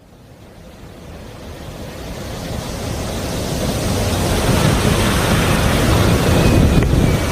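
Boeing 787 airliner on final approach heard from a distance: a low, steady jet noise that grows louder over the first few seconds and then holds, with wind on the microphone.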